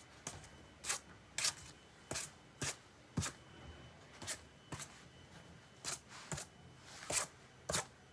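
A paintbrush loaded with paint being dabbed repeatedly onto cardboard: about eleven short, sharp slapping dabs at an uneven pace of roughly one every half second, with a few brief pauses.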